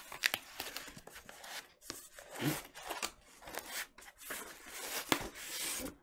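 Cardboard record mailer being pried open and a shrink-wrapped vinyl LP sliding out of it: rustling and scraping of cardboard and plastic, with a few sharp clicks.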